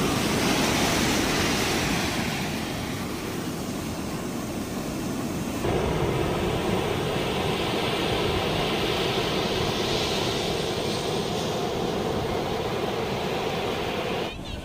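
Sea surf breaking and washing up a sandy beach close by: a steady rushing of waves. The sound changes abruptly about six seconds in.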